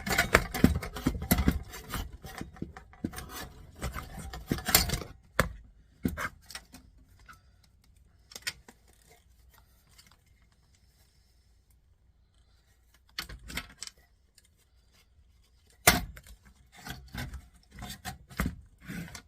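Clattering, scraping and clicking of plastic and metal parts being handled as a stereo's CD player unit is taken apart to get its main circuit board out. Busiest for the first five seconds, then mostly quiet with scattered clicks and one sharp knock about three seconds before the end.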